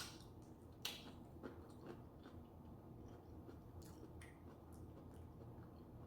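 Faint chewing of a sushi roll close to the microphone, with small scattered mouth clicks; two sharper clicks come at the start and about a second in.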